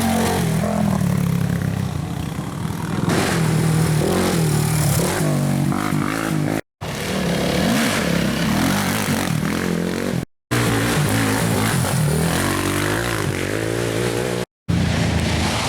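Racing ATV engines revving up and down through the gears, more than one machine at a time. The sound cuts out completely for a split second three times.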